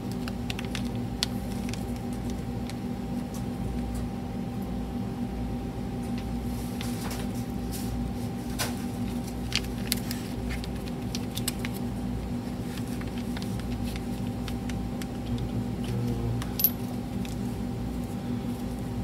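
Light clicks and taps of small metal and plastic mini-extruder parts being handled on a lab bench, scattered through, with one sharper click about sixteen seconds in, over a steady background hum.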